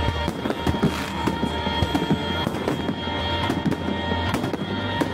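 Fireworks bursting in a rapid run of bangs and crackles, with music playing over them.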